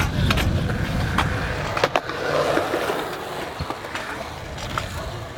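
Small hard wheels of a kick scooter and skateboards rolling over skatepark concrete, a rumble that is loudest in the first couple of seconds and then eases off. Several sharp clacks of wheels or decks striking the concrete break through it.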